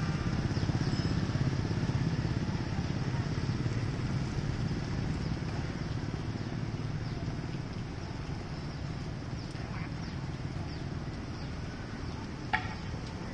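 Low engine rumble of a motorbike or other road vehicle, strongest in the first few seconds and then fading, over a steady hiss of rain on wet ground. A single sharp click comes near the end.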